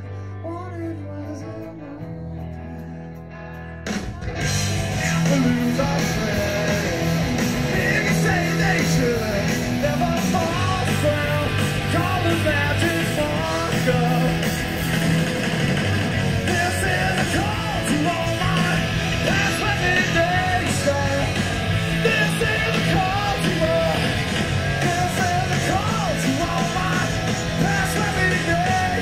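Live rock band on an audience recording. A guitar plays alone for the first few seconds, then about four seconds in the full band comes in loud, with drums, bass and distorted electric guitars, and a singer's voice rides over it.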